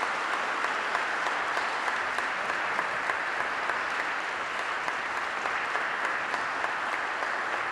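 Audience applauding: a dense, steady clapping that holds throughout.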